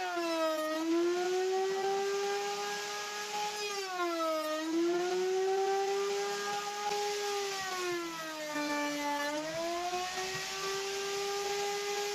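Table-mounted wood router running at high speed with a steady whine. Its pitch sags three times as pieces of a cabinet door frame are fed past the profiled bit, and recovers after each cut: the motor is slowed by the load of routing the door's joinery profile.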